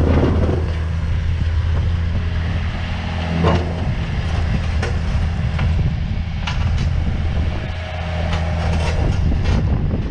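Neuson 50Z3 RD mini excavator's diesel engine running steadily, with several short sharp clanks from the machine over the middle and later part.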